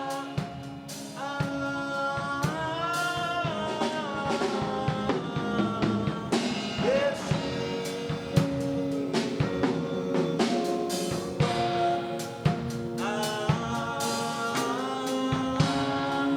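A song: a solo voice singing over a drum-kit beat and held instrumental notes.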